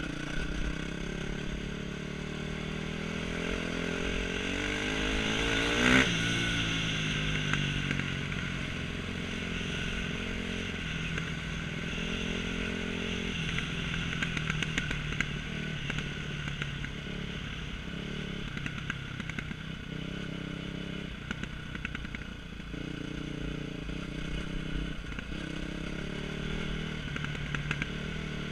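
KTM 250 SX-F dirt bike's single-cylinder four-stroke engine running under way, its revs climbing to a peak about six seconds in, then rising and falling with the throttle, with small clicks and knocks throughout.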